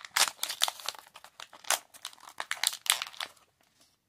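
Thin printed paper wrapper from a Disney Mini Brands capsule crinkling and rustling as hands unwrap a small toy, in quick irregular crackles that stop about three and a half seconds in.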